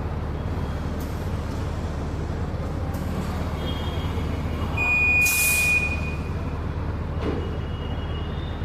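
Compressed air from a tyre inflator hissing in one loud burst of about a second, with a thin whistle, as the new motorcycle tyre is pumped up to seat its bead, over a steady low hum.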